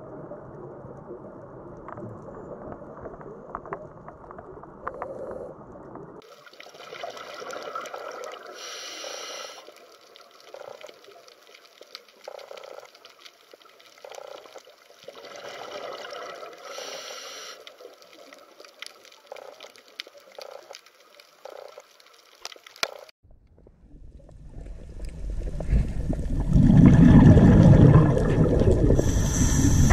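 Underwater sound picked up by a dive camera: water hiss and gurgling that changes abruptly twice between clips, with two brief louder rushes of noise about eight seconds apart and scattered faint clicks. Near the end a loud low rumble of water builds up.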